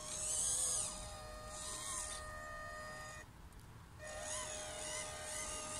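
Electric motor and gears of an Eazy RC Glacier radio-controlled pickup truck whining as it drives, the pitch wavering up and down with the throttle. The whine cuts out for about a second a little past three seconds in, then picks up again.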